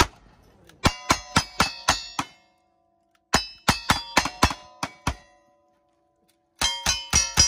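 Gunshots hitting steel plate targets, each hit ringing out with a metallic clang. The shots come in three quick strings of about half a dozen, with short pauses between them.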